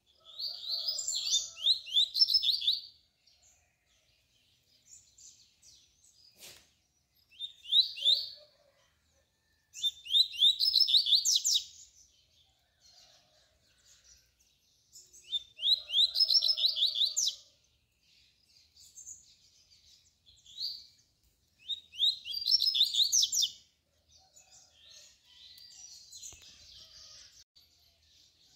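A caged double-collared seedeater (coleiro) singing the tui-tui song type. It gives about five loud, high phrases of rapid repeated notes, each lasting a second or two and spaced a few seconds apart, with softer short notes in between.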